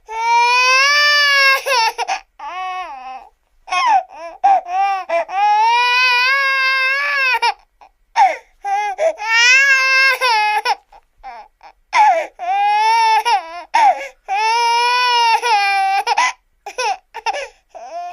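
Cartoon baby crying: four long, loud wails, each held for two to four seconds, with short sobbing catches between them.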